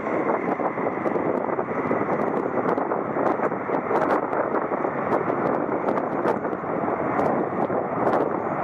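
Boeing 737-300's CFM56 jet engines making a steady roar as the airliner rolls out down the runway just after touchdown.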